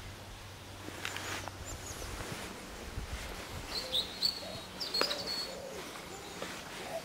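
Birds calling: short high chirps, then lower repeated hooting or cooing calls, with a few sharp clicks in between.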